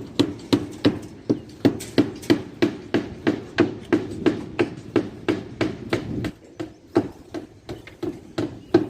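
A hammer striking again and again in a steady rhythm, about three blows a second. The blows grow fainter after about six seconds in.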